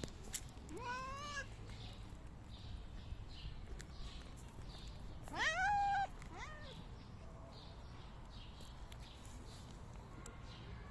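Kitten meowing three times: a rising meow about a second in, then a louder, longer meow around the middle, followed at once by a short one.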